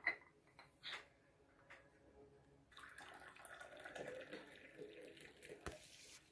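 Tea poured from a ceramic teapot into a china cup: a faint liquid trickle starting about three seconds in and lasting about three seconds, after a couple of light clicks.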